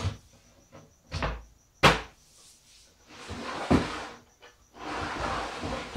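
Hinged wooden door panel of a chuck box being swung shut against the box, with a few sharp wooden knocks, the loudest about two seconds in. Then the wooden box scraping as it is shifted on the bench.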